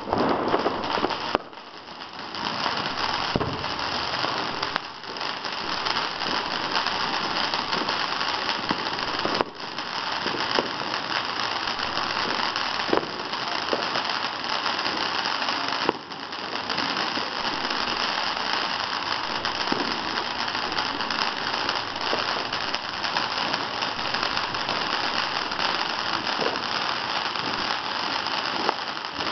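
Ground fountain firework spraying sparks: a steady, loud hiss with scattered crackles, dipping briefly a few times.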